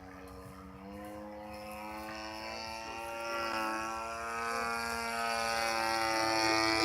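Radio-controlled model airplane's motor and propeller running with a steady buzz; its pitch steps up about a second in as the throttle opens, and it grows steadily louder.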